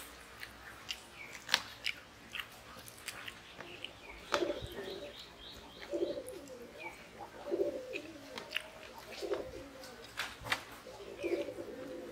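A dove cooing, a series of low coos from about four seconds in to near the end, with faint small-bird chirps. Light clicks of fingers working rice on steel plates sound through it.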